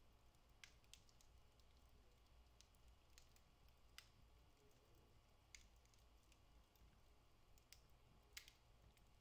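Wood fire in a fireplace crackling faintly: scattered sharp pops from the burning logs, about seven, the loudest near the end, over a faint low hum.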